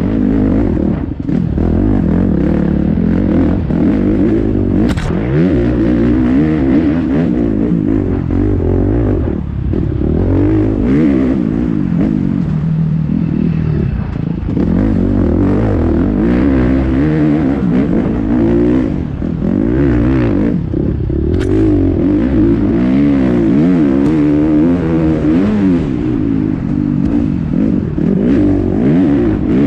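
KTM 350 XC-F's single-cylinder four-stroke engine revving up and down over and over as the dirt bike is raced hard along a rough trail, with a few sharp knocks and clatter from the bike over rocks and roots.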